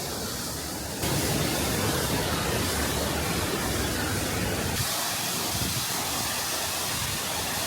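Steady rush of a waterfall, with no distinct events, jumping louder about a second in.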